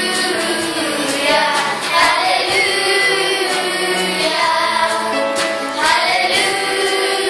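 Children's choir singing a Christian worship song.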